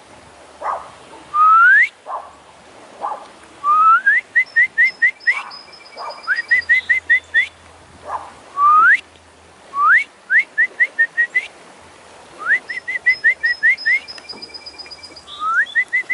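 A person whistling to call dogs in: a long rising whistle followed by a quick run of five or six short rising whistles, the phrase repeated over and over every two to three seconds.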